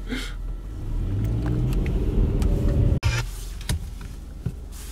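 Car engine heard from inside the cabin, its low note rising in pitch as it pulls away and speeds up; about three seconds in the sound cuts off abruptly and gives way to a steadier, quieter engine hum.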